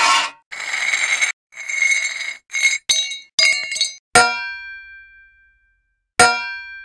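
A run of metal sound effects: several short metallic rattles and scrapes in the first four seconds, then two hard metal strikes about two seconds apart, each ringing out and fading.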